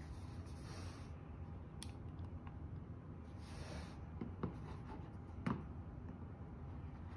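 Faint room tone with a few soft, sharp clicks, two about four and a half seconds in and one about a second later, and brief soft rustling.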